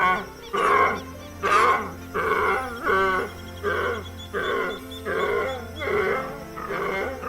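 An animal calling over and over, short pitched calls about twice a second, over background music.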